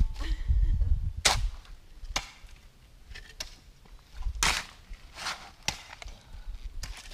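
Steel shovel blade jabbing and scraping into gravelly dirt, about eight sharp scrapes and chops roughly a second apart, two of them louder, with a garden rake working the ground alongside.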